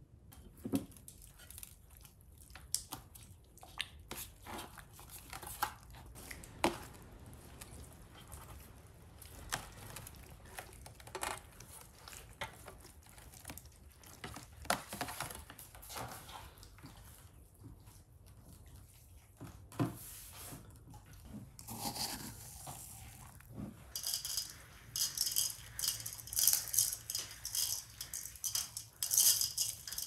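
Scattered light knocks and taps of food being handled in a stainless steel baking tray, then, near the end, loud repeated crinkling of clear plastic wrap being crumpled around the food.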